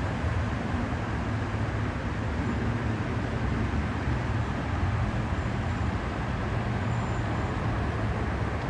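Steady road traffic noise, a continuous low rumble of passing cars with no single vehicle standing out.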